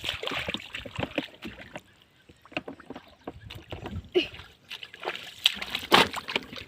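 Hands splashing and sloshing in shallow muddy water in short, irregular splashes, with a quieter stretch in the middle.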